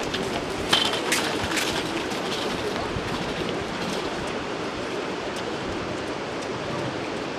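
Steady outdoor rushing noise, with a few sharp clicks in the first two seconds.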